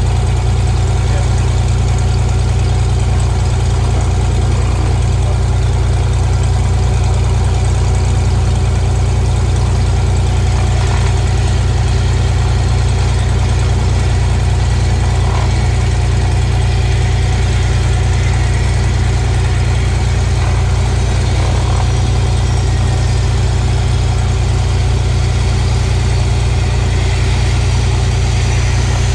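Single-engine piston aircraft engine and propeller of a retractable-gear Cessna running steadily at constant power: a loud, unchanging low drone.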